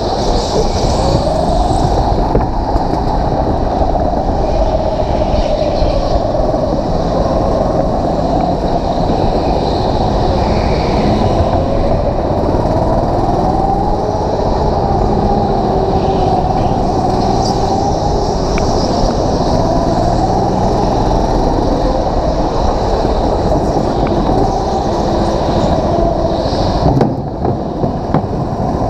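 Go-kart engine running under load, heard from the driver's seat, its pitch rising and falling with the throttle through the corners. Near the end it briefly drops in level as the kart slows.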